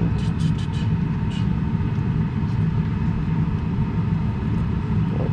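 A steady low rumble, with a few small sharp plastic clicks in the first second and a half as fingers work at a car wiring connector's release tab.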